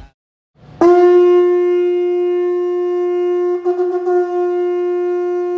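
A single long horn blast at one steady pitch, starting about a second in and held on, wavering briefly near the middle.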